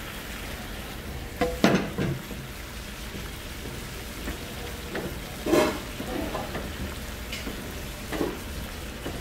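Tomato-cream sauce with shrimp sizzling steadily in a large frying pan, stirred with a long metal spoon that clatters against the pan a few times, loudest about one and a half and five and a half seconds in.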